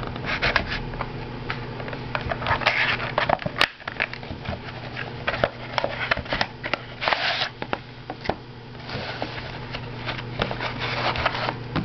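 A sealed trading-card box being cut open and unpacked by hand: plastic wrap crinkling in short bursts, with scattered clicks and cardboard handling sounds.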